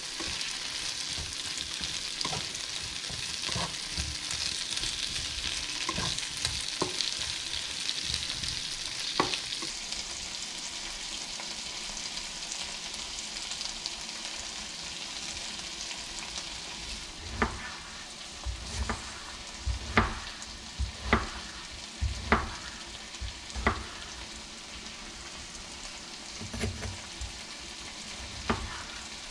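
Sliced bell peppers and onion sizzling in a frying pan, with light clicks of the utensil against the pan as they are stirred. The sizzle then fades, and about two-thirds of the way in a chef's knife starts chopping a tomato on a bamboo cutting board: about ten sharp knocks at an uneven pace.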